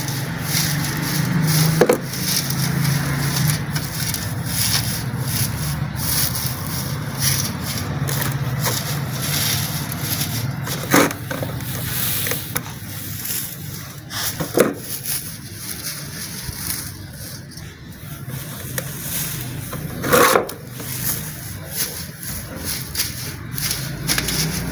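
Dry wood-wool (khus) cooler pad fibres rustling and crackling as hands spread and pat them out over a mesh on a metal frame, with a few sharper clicks.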